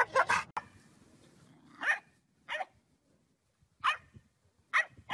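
A dog's weird drawn-out vocal noise cuts off about half a second in. Then a dog gives short single barks, several of them, spaced about a second apart.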